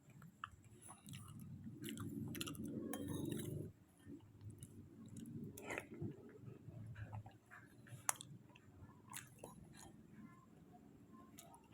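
Close-miked chewing and wet mouth sounds of someone eating kolak ubi, soft sweet potato stewed in coconut milk and palm sugar, with scattered sharp clicks.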